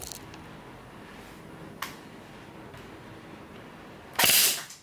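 A single shot from an airsoft Kriss Vector about four seconds in, a short sharp crack of about half a second, fired through a chronograph to measure its muzzle velocity (it reads about 395 fps). A faint click comes a couple of seconds before.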